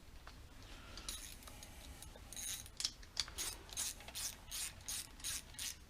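Hand ratchet clicking as it winds in the bolt that holds the camshaft timing tool in place. It makes a run of about a dozen strokes, roughly three a second, starting about two seconds in.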